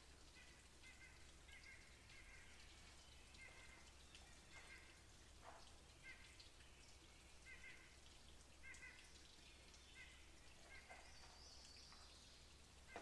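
Near silence: faint outdoor ambience with short high chirps repeating every second or so, and a brief higher sound near the end.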